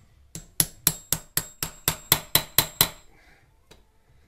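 Hammer tapping a homemade slot-driver, ground from an Allen wrench, into a seized slotted screw on a lathe apron: a quick run of about eleven metallic taps at about four a second, each with a bright ring, stopping about three seconds in. A fresh strike comes right at the end.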